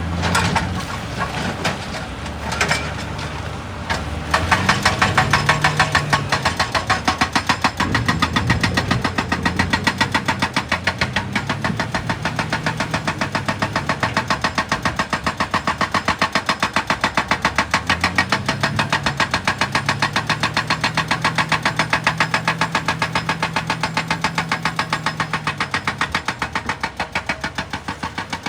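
Excavator's diesel engine running, with a fast, steady pounding from a percussive rock-breaking attachment that starts about four seconds in and keeps an even rhythm. The engine note rises and falls under it.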